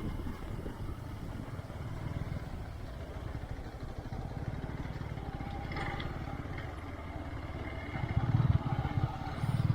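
Single-cylinder motorcycle engine running as the bike rides along, with a steady low pulse, rising louder twice near the end.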